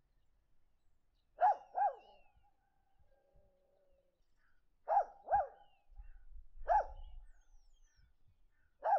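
A dog barking in short barks, mostly in quick pairs a few seconds apart: twice about a second and a half in, twice about five seconds in, once near seven seconds, and once more at the end.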